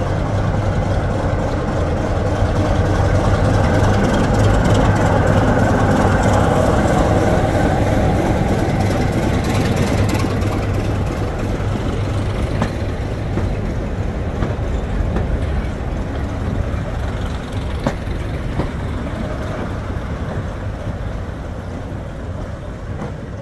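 Class 25 diesel locomotive's six-cylinder Sulzer engine running with a steady low drone as it draws slowly past. The drone is loudest about five seconds in, then fades as the coaches roll by, with a few sharp clicks of wheels over rail joints.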